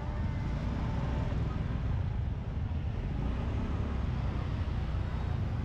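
Motorbike engines running at low speed in slow, crowded street traffic: a steady low rumble.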